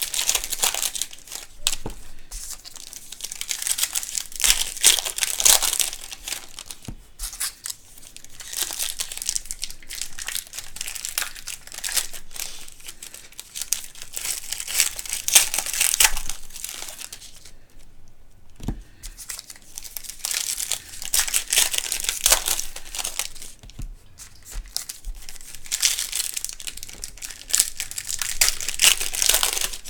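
Plastic wrapping and foil packs of a trading-card box crinkling and tearing as the box is unwrapped and opened, in bouts of a few seconds with short pauses between.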